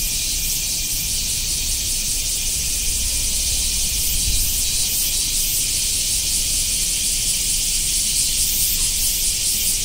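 Chorus of summer cicadas, a steady high buzzing hiss with a faint pulsing shimmer on top.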